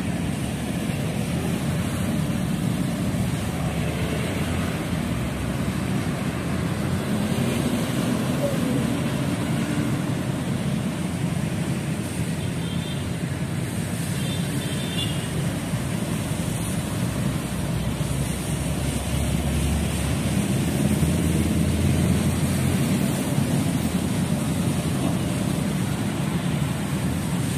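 Steady road-traffic noise from congested city traffic: the engine rumble of cars, trucks and motorcycles crawling past. A couple of short high beeps come about halfway through.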